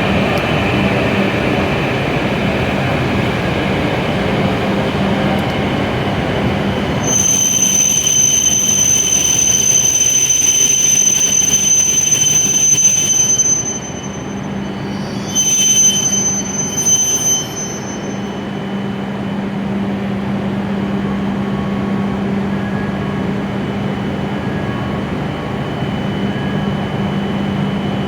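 W7 series Shinkansen train sounding at the platform: a steady low hum, joined about seven seconds in by a high-pitched whine or squeal that breaks off briefly, returns and stops about eleven seconds later.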